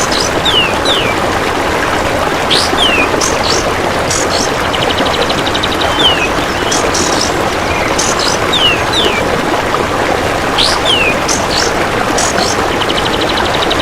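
Looped bird-training track: short, sharp kapas tembak bird calls repeating over a steady trickle of running water. A buzzing insect trill, the golden grasshopper (belalang emas), comes in about five seconds in and again near the end. The same pattern repeats about every six seconds.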